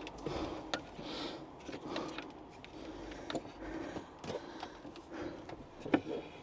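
Faint, scattered clicks and taps of a metal cable lug and nut being fitted by hand onto a leisure battery's terminal bolt.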